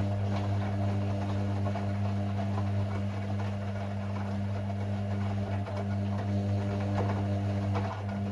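Hoover washing machine's drain pump humming steadily as it pumps water out, with water rushing and splashing through the drum.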